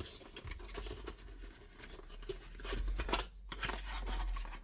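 Packaging being handled and torn open: a run of scratchy rustling and tearing, strongest in the second half.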